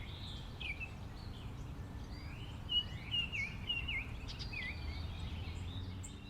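Songbirds chirping and calling in a quick series of short, sweeping notes, thickest in the middle, over a steady low outdoor rumble.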